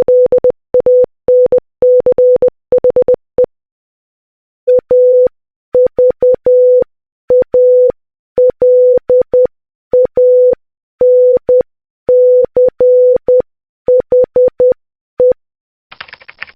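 Morse code beeps at one steady pitch spelling AVALANCHE (.- ...- .- .-.. .- -. -.-. .... .): a quick run ends, and after a short pause the word is keyed again more slowly. A brief hiss-like noise comes near the end.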